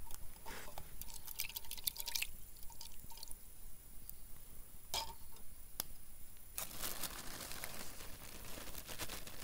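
Water poured in a thin trickle and drips into a stainless steel cup of dried spaghetti, a little at a time. After about six and a half seconds a steady rustling hiss takes over.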